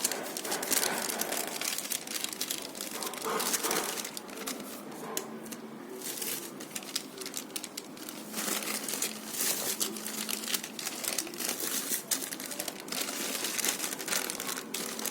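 Packaging being handled: a steady crinkling and rustling with many small crackles, easing off briefly about five seconds in.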